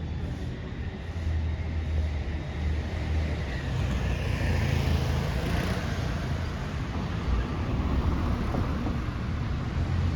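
Street traffic: a steady low rumble, with a car passing close by that grows louder through the middle and fades again.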